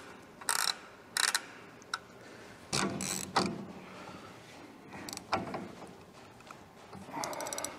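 Intermittent metal clanks and scrapes from hub and spindle-nut work on a truck's full-floating rear axle, ending with a quick run of ratchet clicks.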